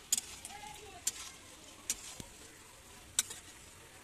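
A metal spatula scrapes and knocks against a kadai about once a second as a thick jackfruit-and-potato masala is stirred and fried down, with a faint sizzle underneath.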